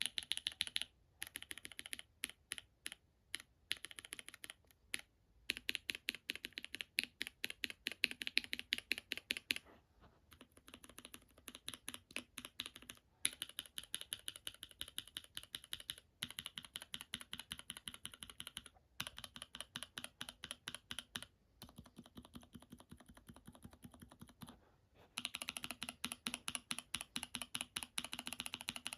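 Mechanical keyboard switches in a switch tester pressed rapidly, a run of fast keystrokes on one switch after another, with a short pause every few seconds as the next switch is tried.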